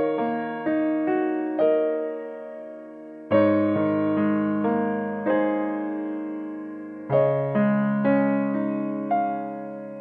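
Background music: slow, gentle piano, single notes and chords struck and left to fade, with a fresh phrase beginning about three seconds in and again about seven seconds in.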